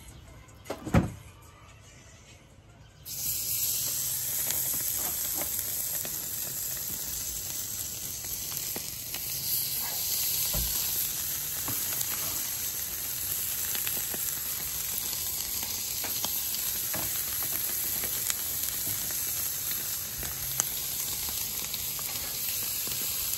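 A dull thud about a second in, then from about three seconds in, steady sizzling with small crackles as chicken sears on hot charcoal grill grates.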